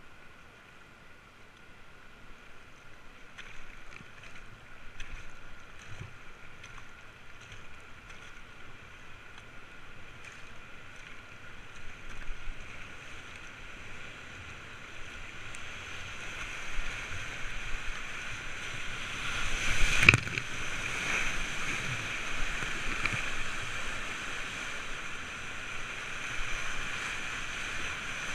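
Rushing whitewater of a river rapid, growing steadily louder as an inflatable kayak comes up to it and runs into the waves. Occasional small splashes of paddle strokes early on, and one sharp, loud slap of water against the boat about twenty seconds in.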